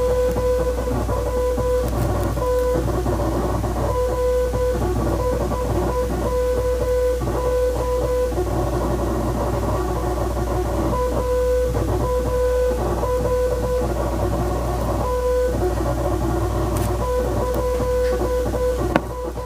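Morse code beeps: a single steady tone keyed on and off in longer and shorter marks, over background guitar music.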